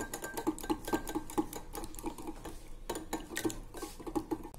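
Wire balloon whisk beating egg whites in a small ceramic bowl: the wires click quickly and evenly against the bowl, about five times a second.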